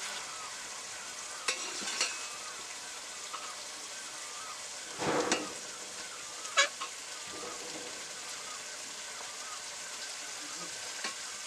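A metal slotted spatula serves chicken curry into a metal bowl: a short scrape and plop about five seconds in, then a sharp metal clink on the bowl just after, with a few lighter clicks. A steady hiss runs underneath.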